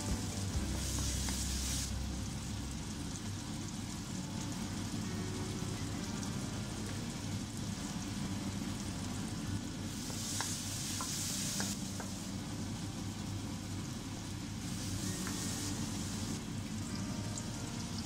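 Onion-tomato masala sizzling in hot oil in a wok and being stirred with a wooden spatula, with small scrapes and taps on the pan. The sizzle flares louder three times, first about a second in as ginger-garlic paste goes in and again around ten seconds in as coriander powder is added.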